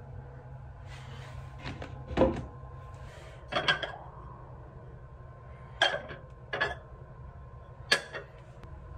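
A wooden cabinet door knocks shut about two seconds in. After it come a few light clinks and taps as lids are lifted off and set back on white cups on a tray, over a steady low room hum.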